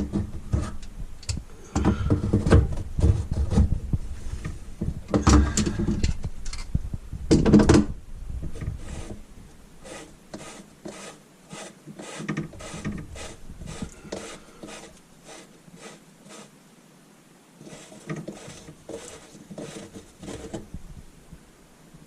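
Knocking, rubbing and scraping of hand work with tools and fittings, heavy for the first several seconds, then a quieter run of sharp clicks a few times a second.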